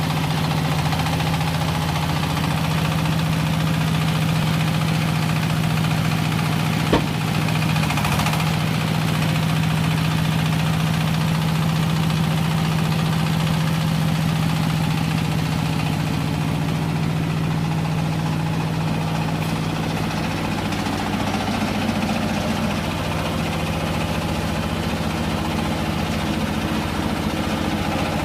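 Hydraulic scrap metal baler for metal shavings running with a steady machine drone and hum, with one sharp click about seven seconds in.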